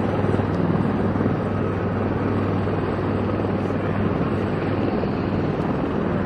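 Helicopter running: a steady, unbroken drone of turbine and rotor noise with a strong low hum.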